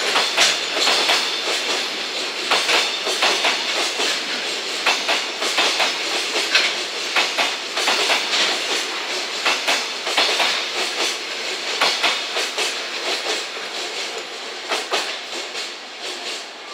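Freight train of container flat wagons passing close by, wheels clicking over the rail joints in a steady clickety-clack. The sound fades near the end as the last wagon goes by and moves away.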